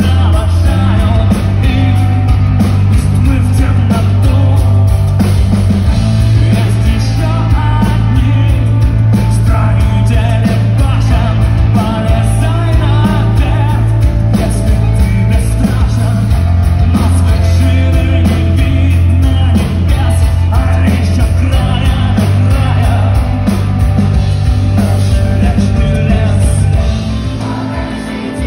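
Live rock band playing loud: a male singer over drums, bass and electric guitar. About 27 seconds in, the band cuts out and the sound gets quieter.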